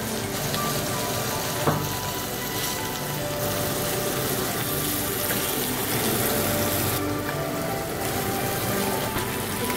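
Jade perch fillets sizzling steadily as they fry in oil in a frying pan, with background music and a single light tap about two seconds in.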